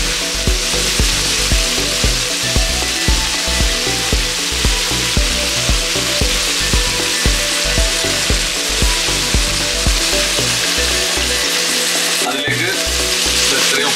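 Onions frying in hot oil in a pan, with steady sizzling, over background music with a steady beat of about two thumps a second.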